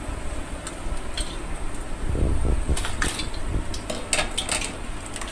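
A wire strainer and a steel spoon clink and scrape against steel bowls as fried soya chaap pieces are tipped in and stirred. The clatters come thickest in the second half.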